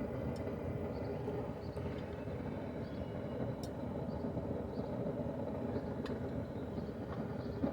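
Forge running with a steady rushing roar, with a few faint clicks over it.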